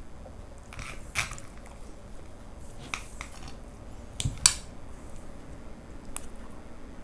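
Close-miked eating: chewing with a handful of short, sharp clicks, the loudest pair about four and a half seconds in.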